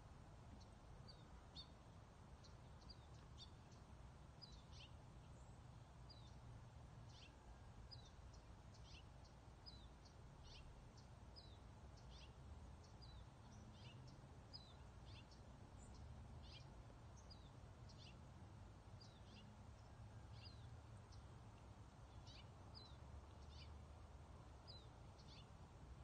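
Faint bird chirps: short, high notes that slide downward, about one or two a second, over a steady low rumble.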